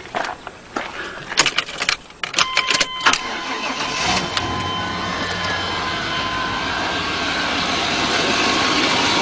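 A few clicks and a short steady beeping tone, then the 5.7-litre 350 V8 of a 1994 GMC Suburban starts about three and a half seconds in and settles into a steady run, growing a little louder near the end.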